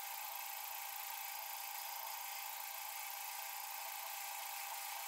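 Metal lathe running steadily with a turning tool cleaning up the outer diameter of a collet chuck blank, a steady even hiss.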